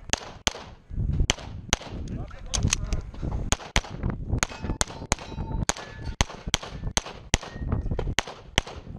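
Rapid pistol fire from a Walther Q5 Steel Frame, close to the microphone: about twenty shots, many in quick pairs, during a timed competition stage. Short metallic rings of bullets striking steel plates come between the shots.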